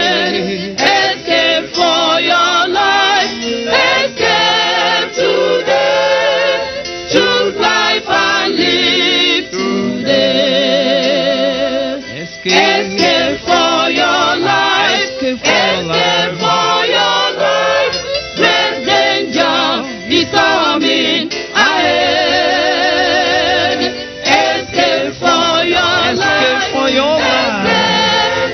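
Choir singing a gospel song, with sustained notes that waver in vibrato.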